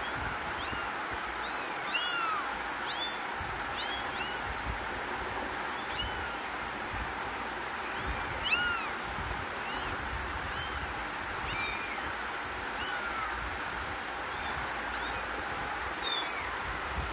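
Young kittens mewing over and over in short, high-pitched cries, about one or two a second, over a steady background hiss.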